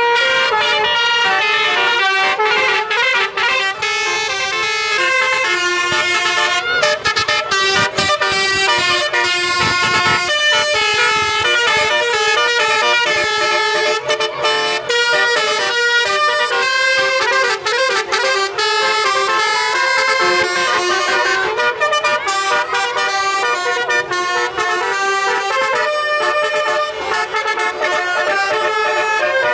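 A vehicle's 'telolet' melody horn, the basuri type, playing a tune of quickly changing notes, loud and without a break.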